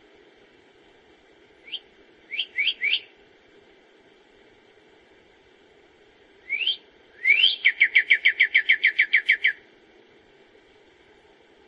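A songbird singing clear whistled notes: a few single rising notes in two short phrases, then a rapid run of about a dozen identical notes, about six a second, that stops suddenly.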